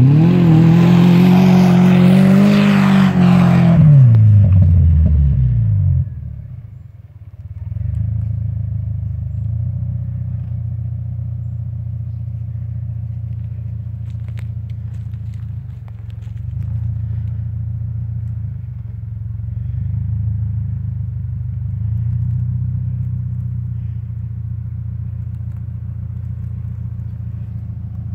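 Subaru station wagon's flat-four engine revving hard for the first few seconds, its pitch rising and falling, with a loud hiss of tyres spinning on loose forest soil. After a brief drop it settles into a steadier, quieter drone that swells a little now and then as the car crawls up the slope.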